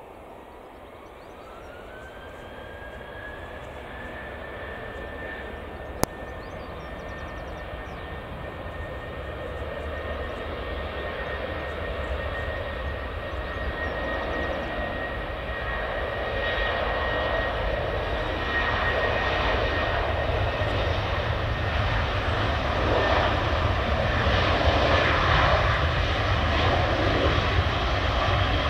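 Boeing 737-800's twin CFM56-7B turbofan engines spooling up for take-off: a whine rises in pitch and then holds while the engine noise grows steadily louder as the jet accelerates along the runway. A single sharp click about six seconds in.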